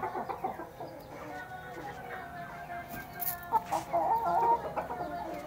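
Chickens clucking in short, repeated calls that grow louder about three and a half seconds in.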